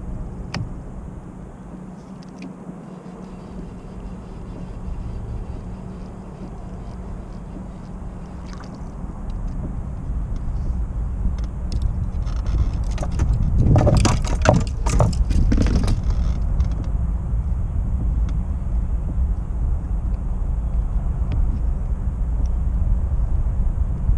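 Fishing rod and reel being handled in a small boat: a burst of rattling clicks a little past halfway through, over a steady low rumble.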